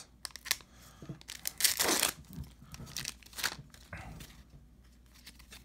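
Foil wrapper of an Upper Deck hockey card pack being slit with a small pocketknife and torn open, crinkling and crackling; the loudest rip comes about two seconds in, with fainter rustling after it.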